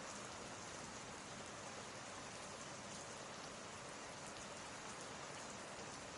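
Steady rain ambience, a soft even patter of rain with no breaks.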